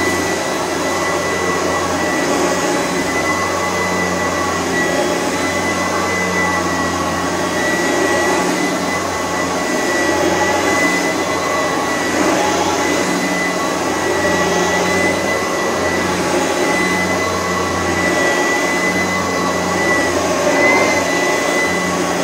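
Oreck Edge upright vacuum cleaner running while being pushed across carpet: a steady high motor whine over the rush of air, with a low hum underneath.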